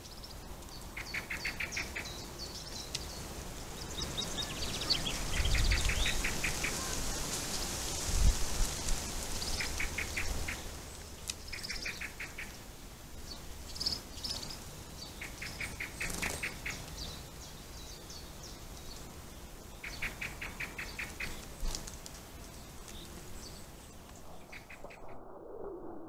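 Wild birds singing and calling: a short, rapid run of evenly repeated notes comes back every four seconds or so, with higher chirps in between. Two dull low thumps about five and eight seconds in.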